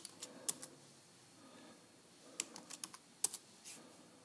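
Typing on a Dell laptop keyboard: a few separate keystrokes at the start, then a quicker run of key clicks from about two and a half seconds in.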